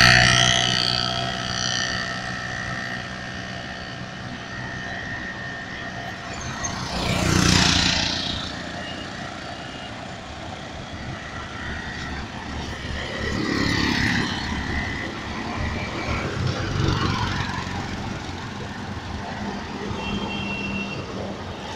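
Road traffic passing on a bridge: motor vehicles, among them three-wheeled auto-rickshaws and a truck, go by one after another over a steady traffic hum. The loudest passes come right at the start, about seven seconds in, and again around fourteen and seventeen seconds.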